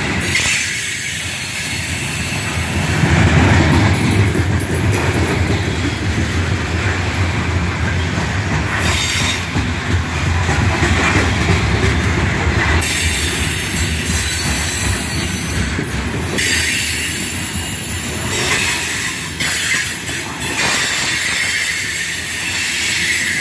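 Loaded steel coal gondolas rolling past close by: a continuous heavy rumble of wheels on rail, with clacking and some high flange squeal from the wheels on the curve.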